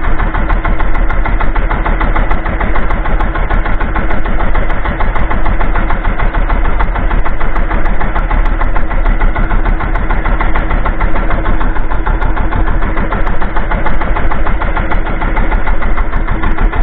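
Outrigger fishing boat's engine running steadily at low speed, a loud fast even chugging with a steady hum.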